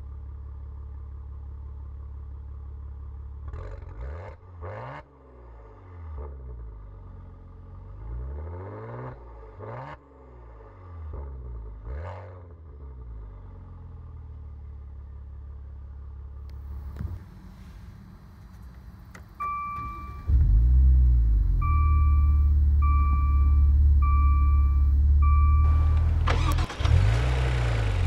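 Maserati Ghibli S Q4's 3.0 L twin-turbo V6 idling and revved up and down a few times. Later a car chime beeps five times, and during it the engine starts with a flare of revs and settles into a loud idle. It is blipped once more near the end.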